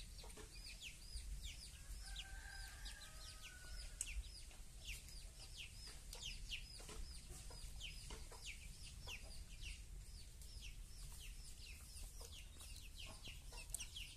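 Faint bird calls: one bird repeats short high chirps, about two to three a second, and a longer, lower drawn-out call sounds about two seconds in.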